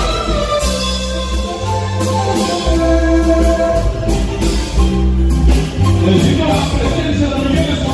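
Guatemalan marimba dance music playing loudly, with held mallet notes over a repeating bass line and a steady percussion beat.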